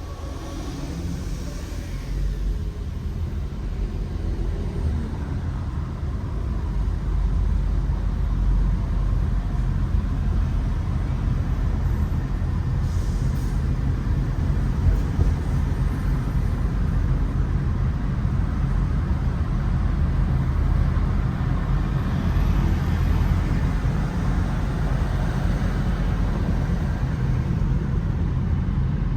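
Steady low rumble of a car on the road, engine and tyre noise, getting louder over the first several seconds and then holding level.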